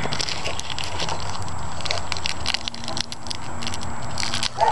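Plastic Warheads candy wrappers crinkling and tearing as the candies are unwrapped by hand, a fast irregular crackle, with a steady low hum underneath.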